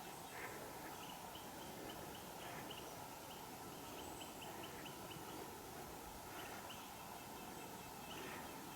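Faint animal calls over a steady background hiss: a quick run of short high notes, three or four a second, starting about a second in and lasting some four seconds, with a few single calls before and after.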